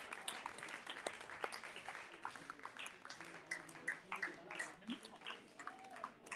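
Audience applauding, scattered claps at irregular intervals, with some people talking.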